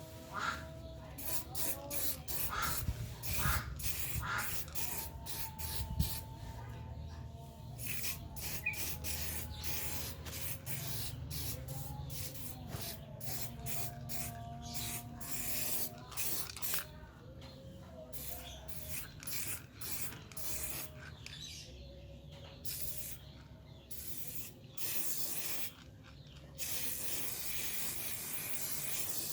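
Aerosol spray can of grey primer hissing out in many short bursts, then one longer continuous spray near the end.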